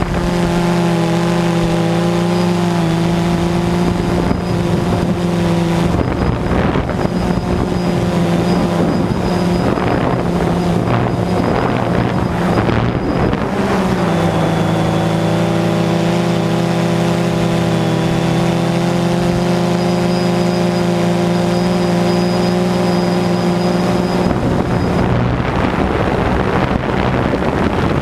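DJI Phantom 2 quadcopter's electric motors and propellers, heard from its onboard camera, with a steady multi-tone whine whose pitch shifts a little as the motor speeds change. Wind buffets the microphone throughout.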